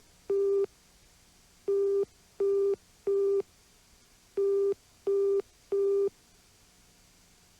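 Telephone signal tone: short, identical beeps of one pitch in groups of three, with a brief pause between groups. They stop about six seconds in.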